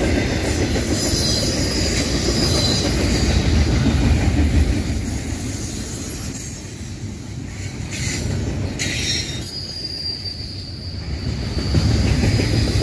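Freight train of double-stack intermodal well cars rolling past at speed: a heavy rumble of wheels on rail, with a thin high wheel squeal at times. The loudness swells and dips as the cars go by.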